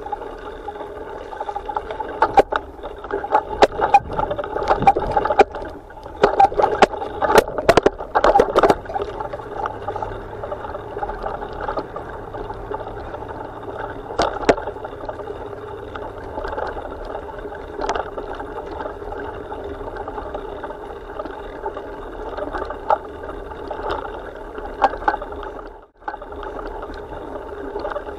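Steady rushing noise of a ride along a bumpy dirt trail, with a cluster of sharp knocks and rattles a few seconds in and a few more later as it jolts over the ground. The sound cuts out for a moment near the end.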